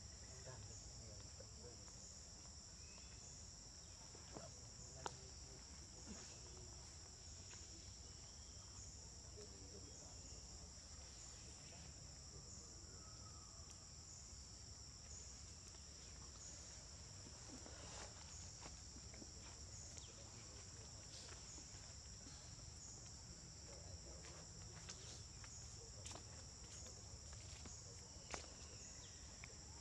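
Faint, steady high-pitched buzzing of an insect chorus, with a few soft clicks now and then.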